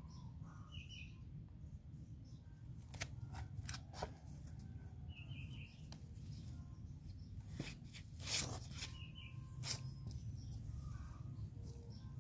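Quiet outdoor background: a steady low rumble with a few faint bird chirps and a handful of sharp clicks, the loudest about eight seconds in.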